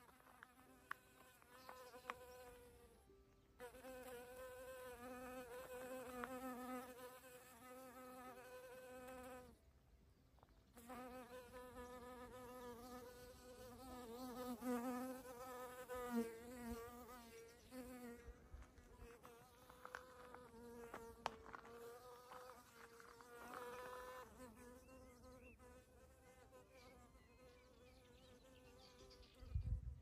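A bee buzzing as it flies among flowering shrubs, the buzz wavering in pitch and fading in and out, dropping away briefly about three seconds in and again around ten seconds in. A low bump near the end.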